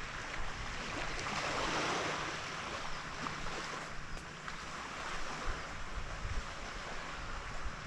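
Small waves washing up the beach, one swell of surf rising and falling about a second or two in, with wind rumbling on the microphone.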